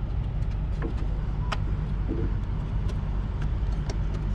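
Cummins X15 diesel truck engine idling with a steady low rumble, and a few sharp plastic clicks as the fuse box cover beside it is handled.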